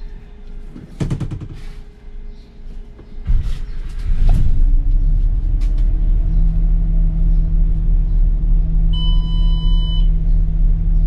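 A King Long bus's diesel engine starts up about three seconds in and settles into a steady idle. Near the end a dashboard warning beep sounds in on-off pulses.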